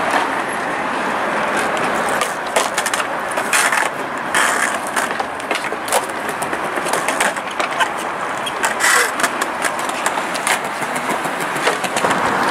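Steady road-traffic noise with many short, sharp clicks and knocks scattered through it.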